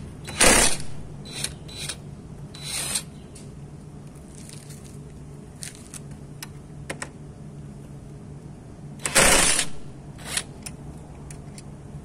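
A cordless impact wrench fired in short bursts on the variator nut of a Piaggio Vespa S50's belt drive: four bursts in the first three seconds and a longer, louder one about nine seconds in. Light metallic clicks come between them, over a steady low hum.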